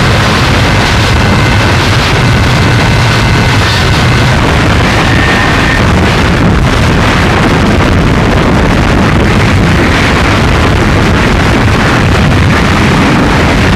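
Harsh noise music: loud, dense distorted noise that never lets up, its weight in a low rumble, with faint thin tones flickering above it in the first half.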